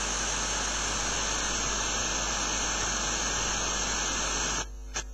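FM tuner hissing on an empty frequency at the bottom of the FM broadcast band: steady untuned inter-station noise. About four and a half seconds in, the hiss starts cutting out in brief gaps as the tuner is stepped up the band.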